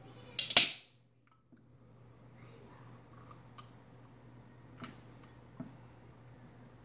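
Pull tab of a can of supercooled root beer cracked open, letting out one short, loud hiss of escaping carbonation pressure about half a second in. A few faint clicks follow as fingers work the tab.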